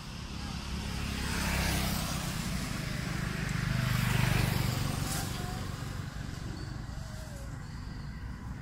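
Motor vehicles passing by on the road, a rising and falling engine and tyre noise that swells twice, about two and four seconds in, then fades away.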